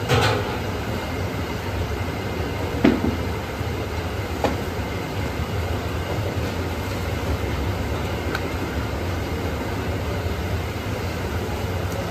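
Steady low rumbling roar from a gas-fired griddle burner and a large pedestal fan, with a few short knocks and rustles as large, thin roti sheets are lifted and stacked on the griddle.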